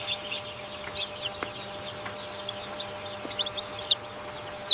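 Many young chicks peeping: a dense run of short, high, falling chirps over a steady low hum, with a sharp click near the end.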